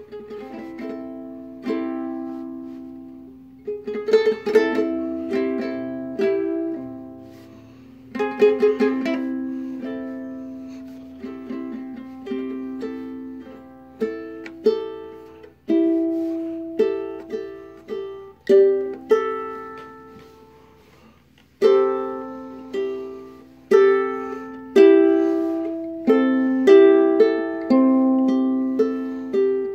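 Ukulele played solo at a slow pace: plucked single notes and a few strummed chords, each left to ring and fade away.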